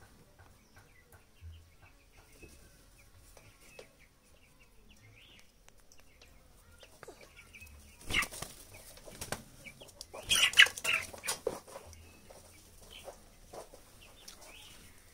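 Young hens fighting: wings flap hard in two bursts, a short one about eight seconds in and a louder, longer one about ten seconds in. Soft clucking and peeping from the flock come before and after.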